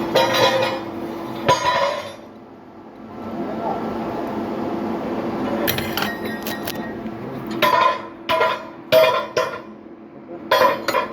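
Metal pump parts and hand tools clinking and knocking together as a centrifugal pump is taken apart: about seven sharp metallic clinks with brief ringing, some in quick pairs, with a quieter pause in the first half.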